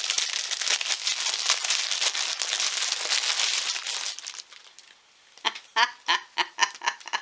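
Clear plastic bag crinkling as a small plush toy is worked out of it; the crinkling stops a little past four seconds in. Near the end a woman laughs in a quick run of short giggles.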